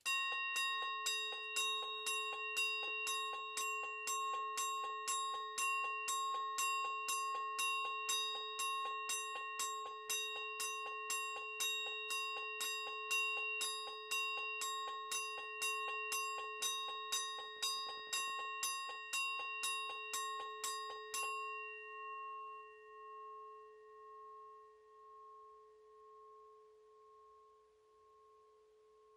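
Faraday 8-inch single-stroke bell striking its red steel gong about twice a second in march time, the fire-alarm pulse pattern. About 21 seconds in the strokes stop, and the gong rings on, fading slowly with a wavering hum.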